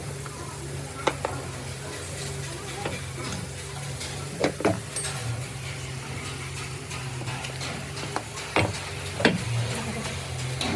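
Hand work on starter motor parts: a steady scraping, brushing noise over a low hum, with a few sharp metal clinks, two of them close together near the middle and two more near the end.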